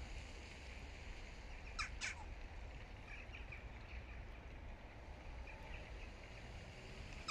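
Two short bird calls in quick succession about two seconds in, each falling quickly in pitch, followed by a few fainter chirps and another call at the very end, over a steady low background rumble.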